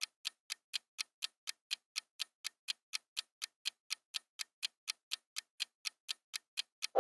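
Quiz countdown timer sound effect: a clock ticking evenly, about four ticks a second.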